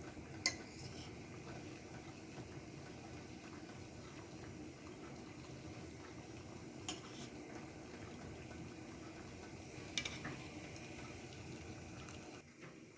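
Pot of onion soup bubbling at a simmer, a steady low bubbling. Three sharp clicks sound over it, just after the start, about seven seconds in and about ten seconds in. The bubbling drops away just before the end.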